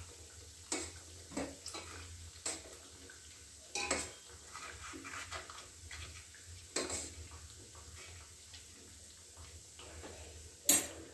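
Scattered light metallic clinks and knocks against a steel pot as fried puris are pressed down into sugar syrup, with a sharper clack near the end.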